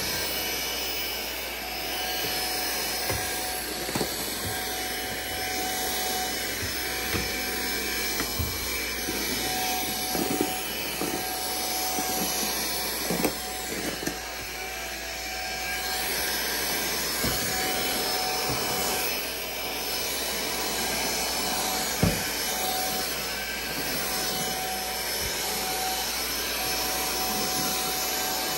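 Aspiron CA-007 cordless stick vacuum's brushless motor running steadily while vacuuming carpet, with a few short clicks and knocks as debris and the brush head pick up bits, one sharper than the rest about two-thirds of the way through.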